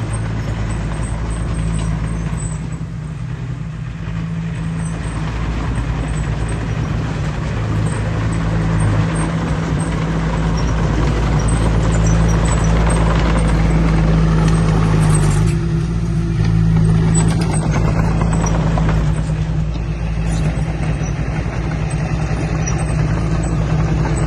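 Heavy diesel engine of earthmoving equipment running steadily under load, with a deep, continuous hum that swells a little in the middle.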